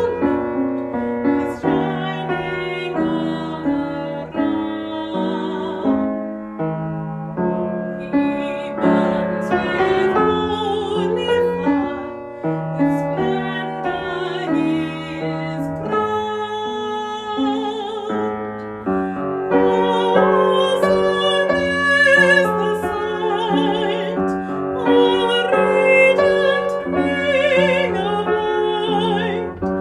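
A slow hymn with piano accompaniment, its melody carried by a lead line with vibrato over sustained chords.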